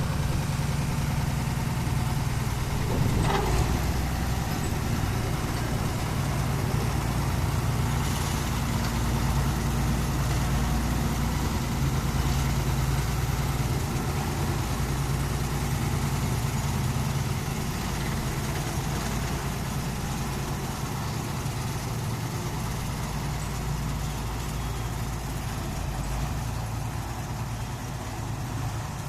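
Road roller's engine running steadily as it compacts soil, a deep even drone that drops slightly in level about halfway through.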